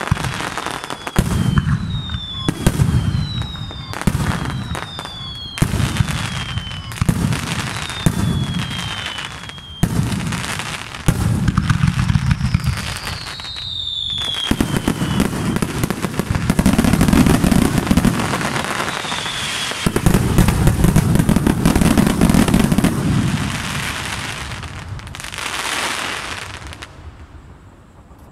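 Aerial firework shells bursting in quick succession, about one a second, each followed by a falling whistle. Then a dense barrage of booms and crackling builds to its loudest and dies away near the end.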